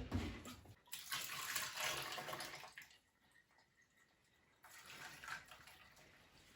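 Cleaner being poured into a washing machine, a soft hissing pour lasting about two seconds, then a shorter, fainter pour near the end.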